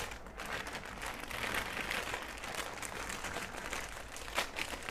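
Packaging crinkling and rustling as a sewing machine's power cord is handled and unwrapped, with a few sharper crackles near the end.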